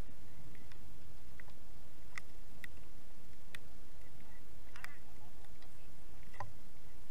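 Light scattered clicks and rustles as a dog delivers a retrieved Canada goose into a straw-covered blind and the bird is taken from its mouth, over a steady low rumble.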